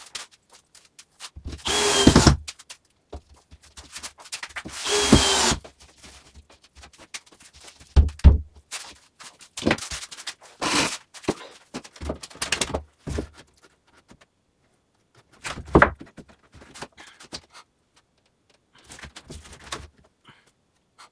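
Power drill running in two bursts of about a second each, its pitch dropping at the end of each burst. Scattered knocks and thumps of wood follow, two of them louder than the rest.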